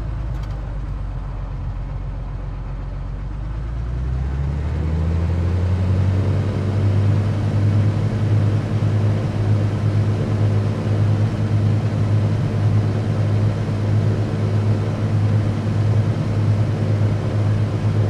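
Cessna 182Q's Continental O-470 six-cylinder engine and propeller droning in flight. Its note rises and grows louder about four seconds in as power comes up, then holds steady.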